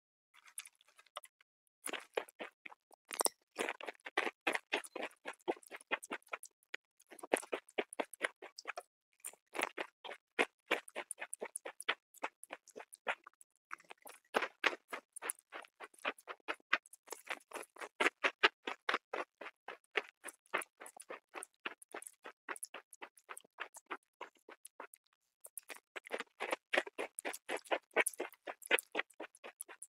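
Crunchy chips being chewed close to the microphone: rapid crisp crunches in bouts of several seconds, with short pauses between mouthfuls.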